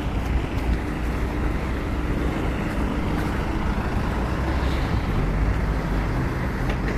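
Road traffic on a wet city street: vehicle engines and tyres running as a steady rumble.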